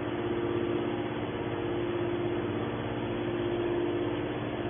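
Hydraulic scrap metal baler's power unit, an electric motor driving the hydraulic pump, running with a steady hum and a steady mid-pitched tone.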